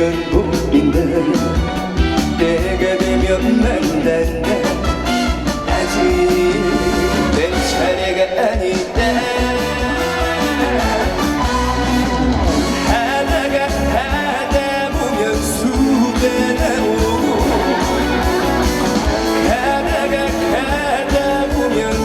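Upbeat trot music played over a loud sound system, with a steady beat and a moving melody line. It sounds like the song's backing accompaniment during a break between sung verses.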